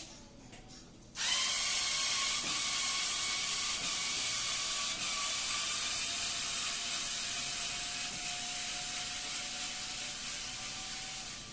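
Power screwdriver running steadily for about ten seconds, backing out the screws of a wall socket's faceplate. It starts about a second in and eases off near the end.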